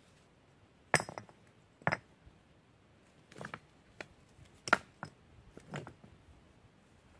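Loose stones clacking against one another as they are handled and set by hand into a dry-stacked stone course: about five sharp clinks and knocks, the loudest about a second in and just before the five-second mark.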